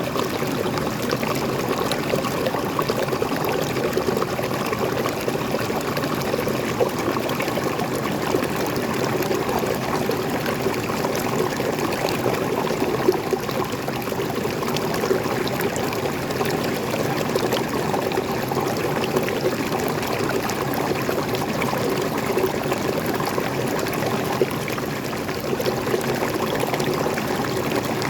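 Waterfall of fresh water pouring and trickling steadily, with small splashes scattered through it.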